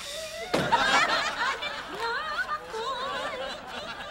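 Laughter from several people at once, breaking out suddenly about half a second in and fading toward the end.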